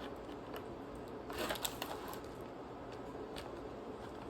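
Light clicks, taps and rustling from hands handling gingerbread house pieces, with a brief cluster of clicks about a second and a half in, over a steady low hum.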